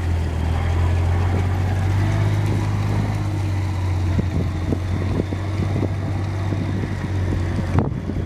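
Amphibious Combat Vehicle driving past and away, its engine giving a steady low drone. Scattered light clicks join in toward the end, with one sharp click just before the end.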